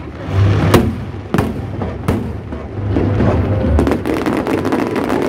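Aerial fireworks bursting: several sharp booms in the first two seconds over a low rumble, then a dense run of rapid crackling from about four seconds in.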